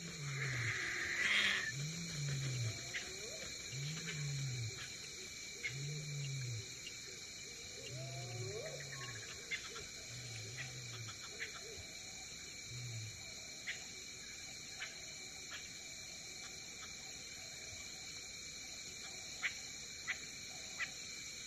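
A big cat grunting, a series of about seven low, rising-and-falling calls roughly two seconds apart that stop about halfway through, over a steady faint hiss with scattered soft ticks.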